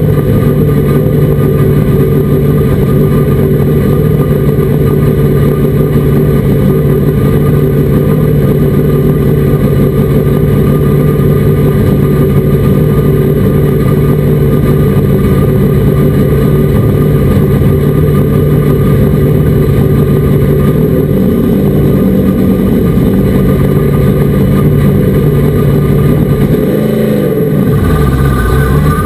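Race truck engine running hard at a steady, loud pitch. Near the end the engine note dips and then climbs back up.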